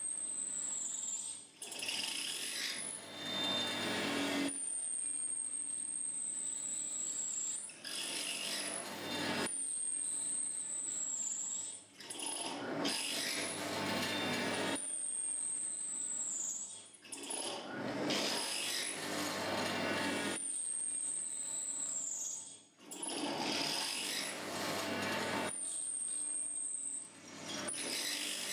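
Pillar drill at top speed driving a 6 mm Artu carbide-tipped bit into a hardened steel bearing race. A high, thin whine that dips in pitch as it ends alternates every three to five seconds with bouts of harsh rasping as the bit cuts into the steel.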